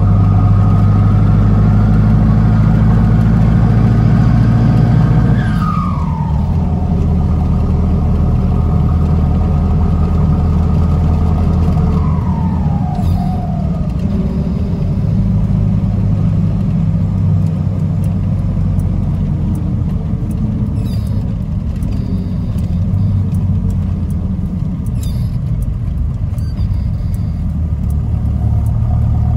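Ford F1000 diesel pickup's engine heard from inside the cab while driving, pulling steadily and then easing off about five seconds in. Twice a whistle falls in pitch as the throttle comes off, the turbo spooling down.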